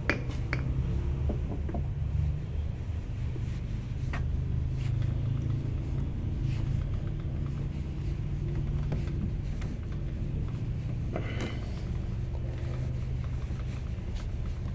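Scattered clicks and knocks of pump fittings and tools being handled, over a steady low rumble.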